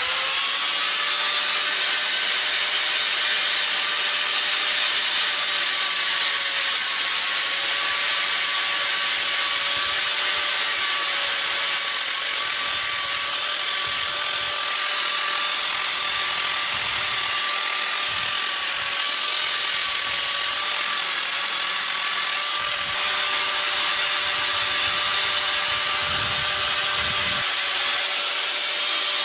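Bench-mounted electric angle grinder switched on, spinning up in the first second, then running at speed with a steady whine. From about halfway through, a small wooden piece is pressed against the spinning disc in short strokes, adding rough grinding and sanding noise.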